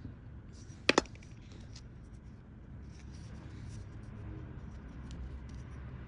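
A small flat-tipped hand tool scraping and gouging a groove into a wooden stick in light scratches, with two sharp clicks close together about a second in.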